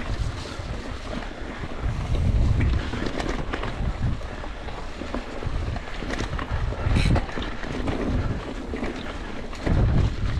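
Wind buffeting the microphone of a mountain bike's ride camera on a fast descent, over the rumble of tyres on a dirt trail. Short knocks and rattles come from the bike over the bumps.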